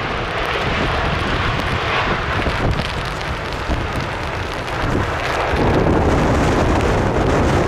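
Jet engine noise from a landing KLM Boeing 787-9 with GEnx-1B engines, under heavy storm wind buffeting the microphone. The noise swells about five and a half seconds in, around touchdown.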